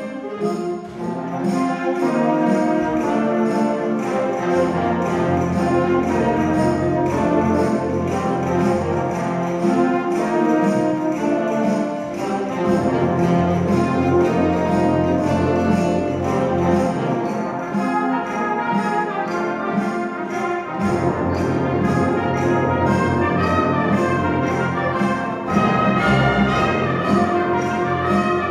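Concert band of clarinets, saxophones and brass playing a piece together, with the low brass coming in about four seconds in, dropping out briefly, then returning.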